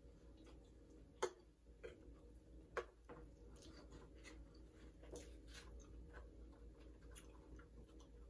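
Faint crisp clicks and crackles of tortilla-chip nachos being eaten, chewed and picked from the plate by hand, scattered irregularly, the sharpest a little over a second and near three seconds in.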